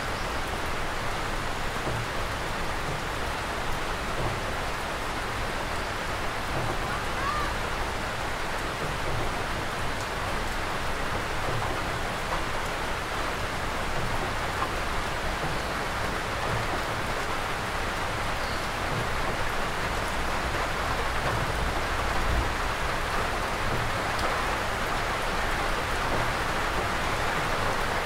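Steady, even rainfall.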